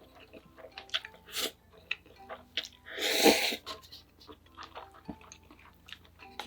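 Close-miked eating sounds: small chewing and mouth clicks throughout, with one loud, noisy slurp about three seconds in.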